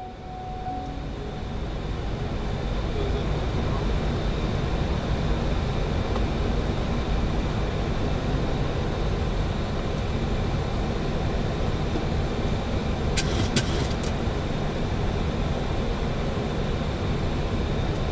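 Steady cockpit noise of a Boeing 737-800 in descent: the rush of airflow and engine rumble, rising over the first few seconds and then holding even. A brief high crackle comes about 13 seconds in.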